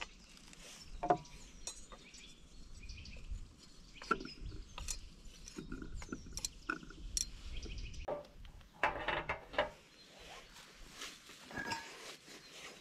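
Scattered light clicks and knocks of cooking things being handled at a wooden table, with a few short bird chirps.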